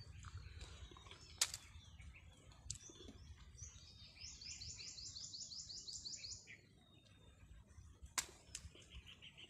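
A bird singing faintly outdoors: a rapid trill of about a dozen high, evenly repeated notes lasting about two and a half seconds, starting around four seconds in, and a shorter, lower trill near the end. Two sharp clicks stand out, one early and one near the end.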